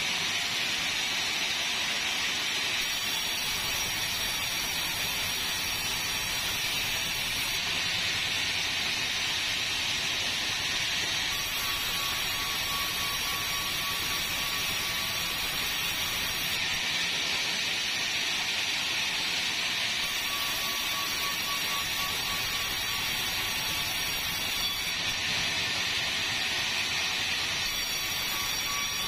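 Sawmill machinery running steadily with a loud, even hiss-like noise, and a thin high whine that comes and goes twice.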